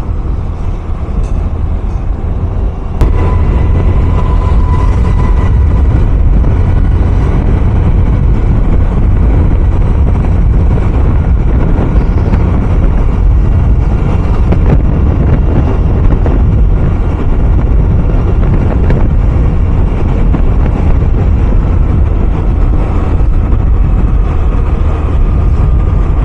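Honda Dio 110cc scooter on the move: steady engine and road noise from the ride, heaviest in the low end, stepping up in loudness about three seconds in.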